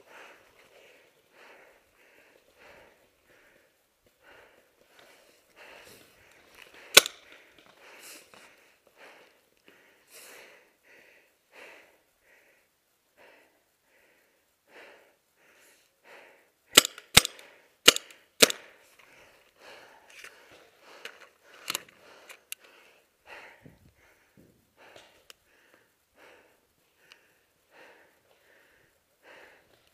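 Paintball marker shots: a single sharp crack about seven seconds in, a quick string of four about ten seconds later, and a few more a few seconds after, over steady heavy breathing.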